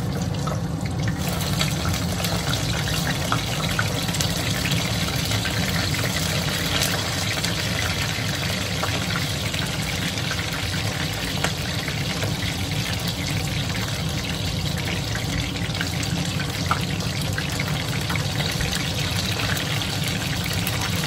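Chicken karaage deep-frying in hot oil for its second fry: a steady sizzle dotted with small crackles, growing stronger about a second in, over a low steady hum.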